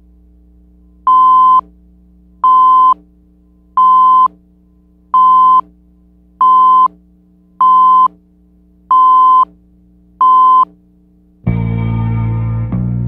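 Countdown leader beeps: eight short, steady, high-pitched tones, one about every second and a third, over a faint low hum. Music starts near the end.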